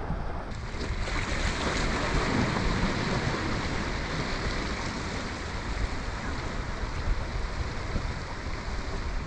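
Wind buffeting the microphone over the wash of small bay waves against a rock wall, a steady rushing noise that swells a little about a second in.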